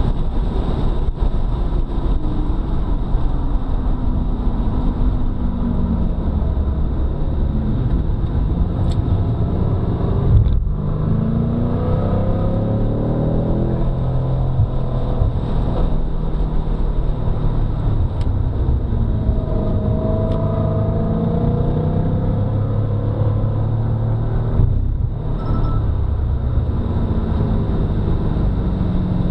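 BMW F90 M5's twin-turbo V8 running hard on track, its revs climbing and falling repeatedly through gear changes, with short breaks in the note about ten seconds and twenty-five seconds in.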